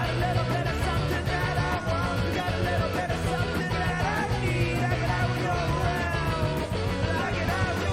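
Rock music from a full band, with a steady drum beat.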